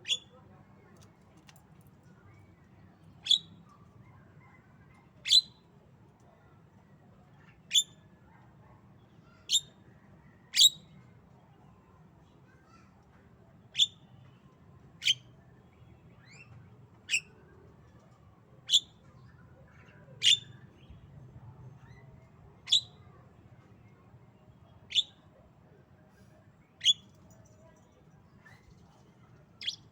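Javan myna giving short, sharp single chirps, about fifteen of them spaced irregularly one to three seconds apart.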